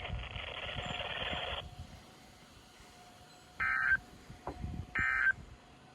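Weather-radio hiss for about a second and a half, then two short buzzy digital data bursts about 1.4 s apart: the SAME end-of-message code of a NOAA Weather Radio alert, the signal that the alert broadcast is over.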